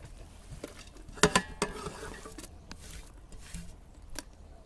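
A metal plate clanking against the rim of a metal pot as grated bottle gourd is tipped in: one sharp ringing clank about a second in, followed by a few lighter taps and scrapes.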